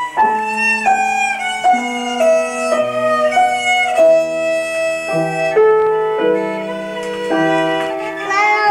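A child playing the violin with the bow: a slow melody of held notes that change every half second to a second.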